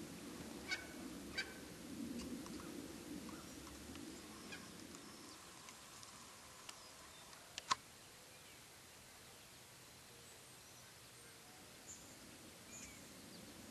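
Wild turkey gobblers calling: a few short, sharp calls in the first couple of seconds and a louder one about halfway through, over faint steady background noise.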